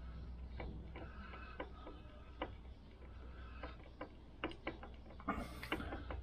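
Light, irregular clicks and taps of metal parts being handled at a Lambretta scooter engine's stator plate and magneto housing, with a quicker run of clicks near the end, over a steady low hum.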